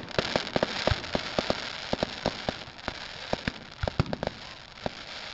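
Fireworks going off: many sharp pops over a dense hiss that thins out after about three seconds, with scattered bangs continuing.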